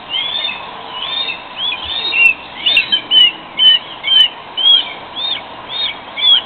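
A bird calling: a steady series of short, sharp, slurred chirps, about two a second, getting louder about two seconds in.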